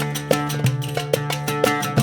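Background music: an upbeat Latin-style track with plucked guitar and a steady beat.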